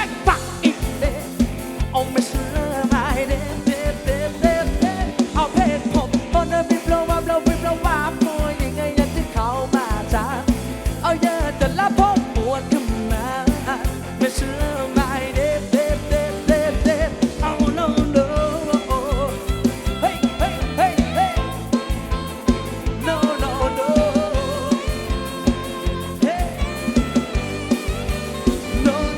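Loud live Thai rot hae band music: a steady, driving drum beat under a wavering lead melody, with singing.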